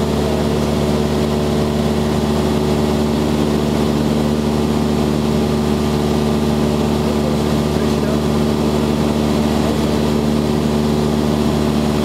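Cessna 172's piston engine and propeller running steadily in flight, a constant drone heard from inside the cabin.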